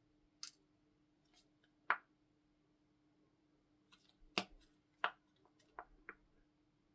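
A plastic toothpaste tube being squeezed, paste coming out onto slime: about half a dozen short, quiet clicks and pops at uneven gaps.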